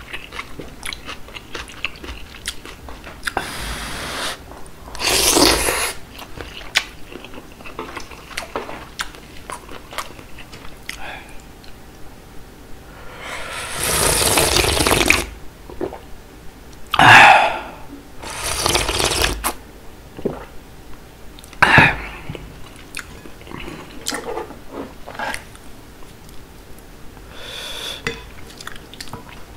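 Close-miked eating sounds: chewing seaweed and noodles with small wet mouth clicks, and slurping broth from the rim of the bowl, with the longest slurp about 13 to 15 seconds in.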